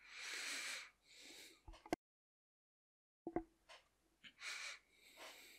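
Faint breathing close to a microphone: an in-breath right after speaking and another about four and a half seconds in, with a few small mouth or desk clicks between them and a short stretch of dead silence.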